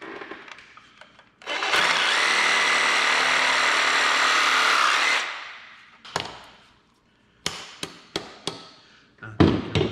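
A cordless reciprocating saw cuts through a pipe fitting in one steady run of about four seconds, starting a little over a second in and stopping abruptly. Then comes a series of sharp hammer taps on a fitting, the loudest knock near the end.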